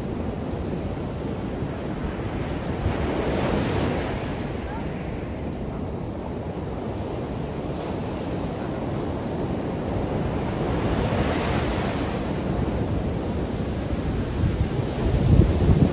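Ocean surf washing up a sandy beach, with waves swelling and breaking about 3 and 11 seconds in. Wind buffets the microphone in low rumbles near the end.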